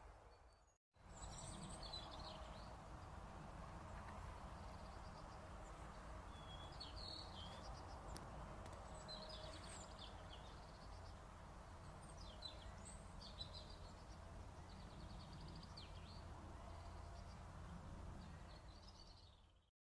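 Birds chirping in short phrases every second or two over a faint, steady low rumble. The sound drops out briefly about a second in.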